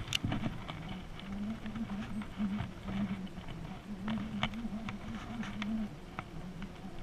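Baitcasting reel being cranked to retrieve line: a low, steady whir that wavers slightly, with scattered light clicks from the reel and handle.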